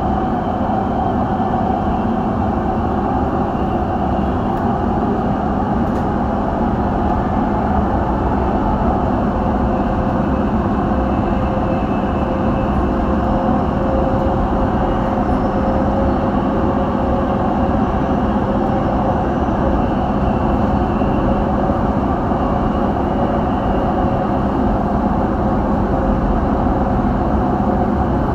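Dubai Metro train running between stations, heard from inside the carriage: a steady rumble of wheels on the rails with a faint whine.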